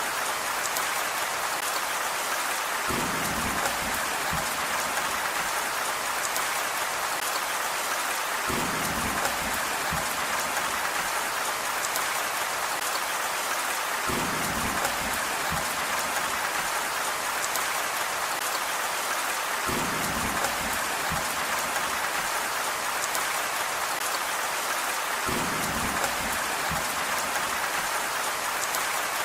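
Steady rain falling with an even hiss. A low rumble swells in for a second or two about every five and a half seconds.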